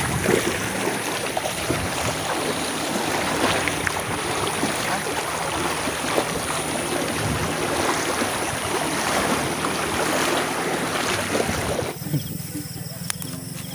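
Water sloshing and splashing as people wade through a shallow river, in a dense, irregular wash. About twelve seconds in it cuts to a much quieter background.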